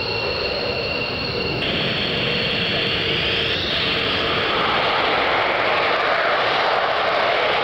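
F-15 Eagle's twin jet engines running as the fighter rolls along the runway: a steady jet roar with a high turbine whine that rises in pitch about three seconds in, getting a little louder toward the end.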